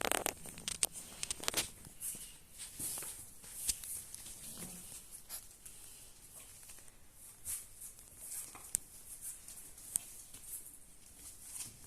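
Four-week-old Alaskan Malamute puppies moving about: irregular soft clicks, scrabbles and pattering of small paws and bodies, busiest in the first few seconds.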